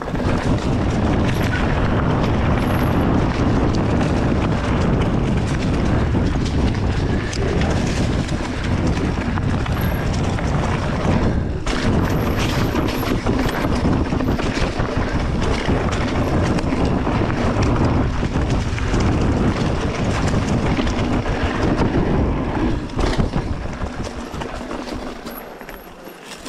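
Mountain bike descending a dirt forest trail at speed, heard from a camera on the rider: wind rushing over the microphone with the tyres rumbling and the bike rattling over the rough ground. The noise falls off near the end as the bike slows.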